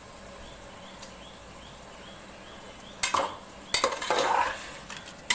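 A metal ladle scraping and clinking against the inside of a pressure cooker as a rice, dal and keema mixture is stirred. It starts about three seconds in after a quiet stretch, with several sharp knocks and scrapes.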